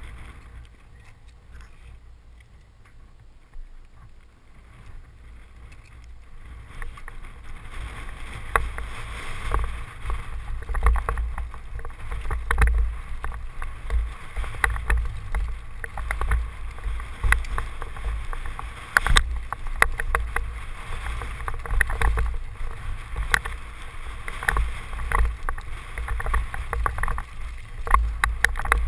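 Mountain bike running down a rocky trail, heard from a helmet-mounted camera: wind rumbling on the microphone, with a constant rattle of clicks and knocks from the bike over the stones. It is quiet for the first few seconds and gets louder from about seven seconds in as the pace picks up.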